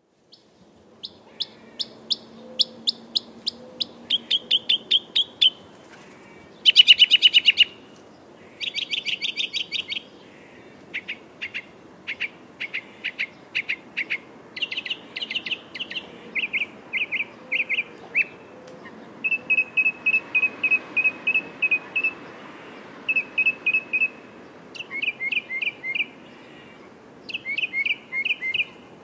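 Northern mockingbird singing: a long run of varied high-pitched phrases, each note or phrase repeated several times in quick succession before the song switches to a new one. The loudest moments are two dense, buzzy bursts a few seconds in.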